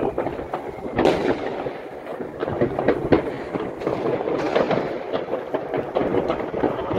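Many fireworks and firecrackers going off at once across a town: an unbroken run of overlapping bangs and crackles, with a sharper bang about a second in.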